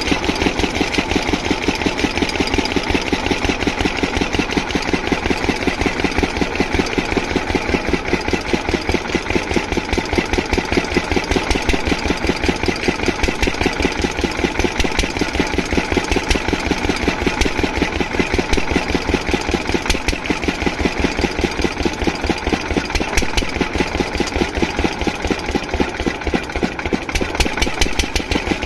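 Small stationary diesel water-pump engine running steadily with an even, rapid beat, its fuel supply fault cleared so it runs without faltering.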